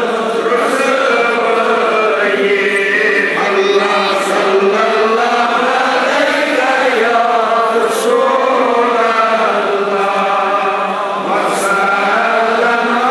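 Men's voices chanting Darood (salutations on the Prophet) together in a slow, unbroken melodic recitation.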